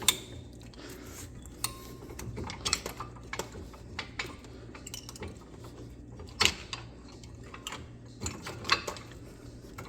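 Scattered metal clinks and knocks as hand tools and brake parts are handled, with a sharp click just at the start and louder knocks about six and a half and eight and a half seconds in.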